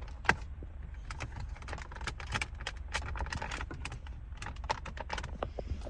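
Plastic dashboard trim panel of a Hyundai Elantra being tugged and worked loose, its tight retaining clips and the plastic clicking and rattling in a rapid, irregular series.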